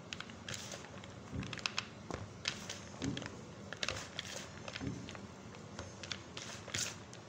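Fingers pulling at the inside of a green bell pepper held over a plastic bowl: irregular crackling and small crisp clicks as the pepper's flesh and seeds give way, with a few soft thumps.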